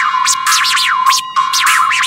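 Record scratching on a tiny toy turntable: a steady high tone is pushed back and forth by hand, so its pitch keeps whipping up and dropping back, about five or six strokes a second.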